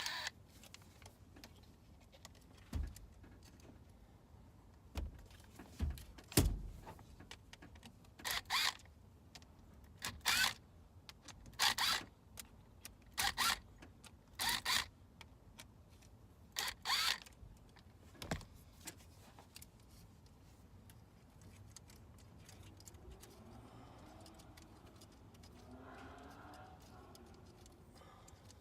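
Metal parts and hand tools being handled: a series of short clicking rattles, with a few dull thumps in the first third.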